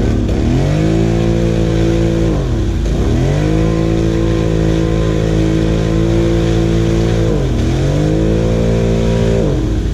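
ATV engine held at high revs as it churns through a deep mud hole, its pitch sagging and climbing back three times as the throttle and load shift.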